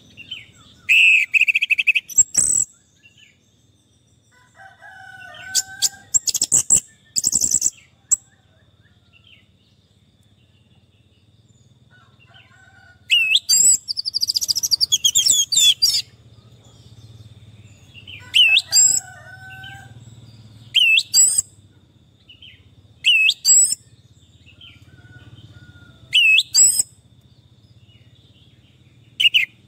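Orange-headed thrush (anis merah) singing: short loud bursts of quick, sweeping whistled notes every two to five seconds, with softer, lower-pitched calls in between.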